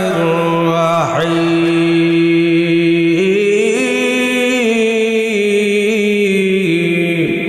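A man chanting Arabic recitation in long held, melismatic notes. The pitch steps up about three seconds in and comes back down near the end, with short breath breaks about a second in and just before the end.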